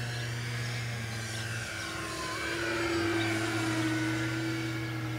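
The twin electric motors and propellers of an FMS P-38 Lightning RC model plane whining in flight. Some of the pitches fall as it passes, getting a little louder about three seconds in, over a steady low hum.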